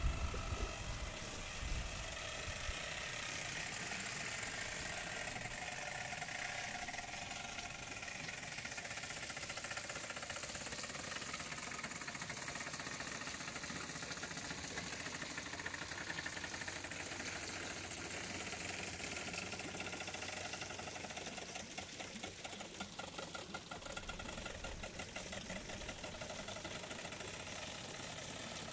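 Steady rush of water flowing along a stone-lined irrigation canal fed by a wooden water wheel. A fast, rhythmic pulsing joins in about three quarters of the way through.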